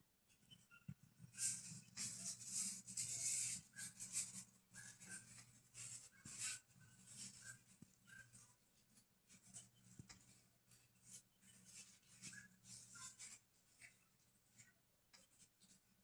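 Birds making faint short chirps among many small scratching and rustling clicks, over a steady low hum.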